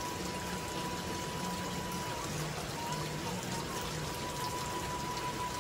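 Steady rain falling, an even hiss with scattered drops ticking.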